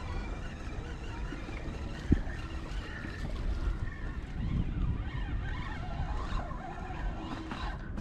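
Wind rumbling on the microphone over traffic on the bridge road. A single short knock about two seconds in.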